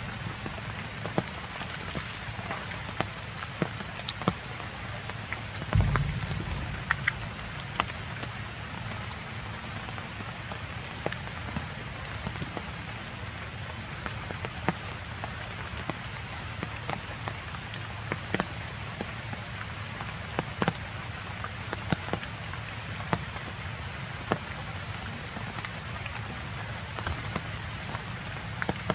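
Rain falling: a steady hiss with scattered drops ticking sharply on nearby surfaces. A short low thump about six seconds in.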